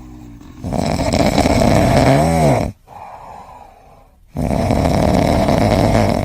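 A sleeping pet snoring loudly: two long snores about two seconds apart. The first ends in a brief whistling tone that rises and falls.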